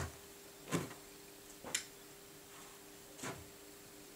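Hands patting and smoothing a knit sweater flat on a wooden table: four short separate pats and swishes, roughly a second apart, over a faint steady hum.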